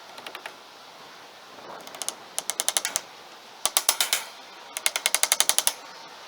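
Rapid mechanical clicking in four short bursts, roughly ten clicks a second, the longest burst near the end.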